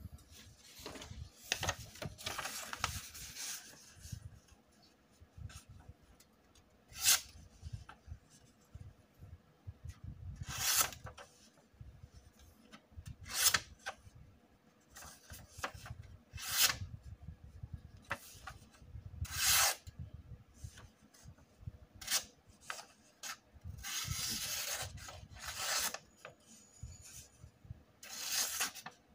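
Cold Steel Pro Lite Sport folding knife slicing through a sheet of printer paper. The cuts are a series of short, sharp strokes about every three seconds, with longer stretches of cutting near the start and near the end.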